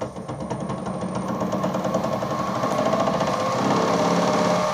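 Milling machine spindle starting up and running with a fly cutter spinning, getting louder over the first couple of seconds as it comes up to speed, then running steadily.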